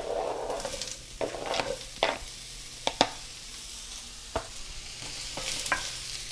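Chopped onion sizzling in oil in a hot skillet as it is stirred, with a utensil clicking sharply against the pan about nine times.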